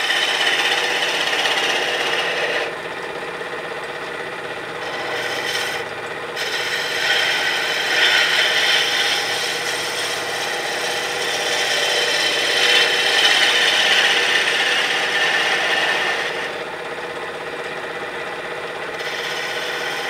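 Spindle gouge cutting a spinning wood blank on a lathe: a rasping hiss of shavings that swells and eases in several passes as the tool is worked around the rounded end.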